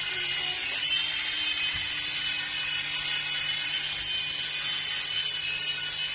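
Mini RC toy helicopter flying: its small electric motors and rotors give a steady high whine over a low hum, rising slightly in pitch about a second in.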